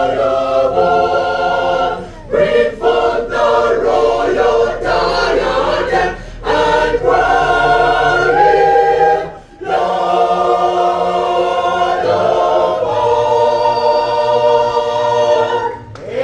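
Choir singing a hymn in full harmony, in phrases broken by short pauses, closing with a long held phrase.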